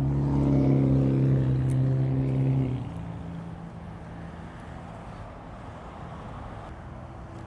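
A motor vehicle's engine running nearby, a steady low hum that drops away about three seconds in, leaving a faint traffic background.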